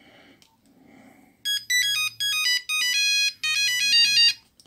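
A Nokia mobile phone's speaker plays a fast monophonic beeping ringtone melody as tunes in its ringtone list are previewed. A couple of faint keypad clicks come first. The melody starts about a second and a half in and changes note rapidly, with brief breaks.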